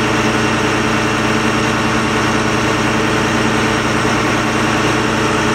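Fire brigade aerial platform truck's diesel engine running steadily at idle.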